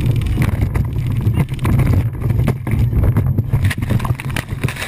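Motorboat on open water: a steady low engine and water rumble with wind buffeting the microphone, broken by many sharp knocks and slaps.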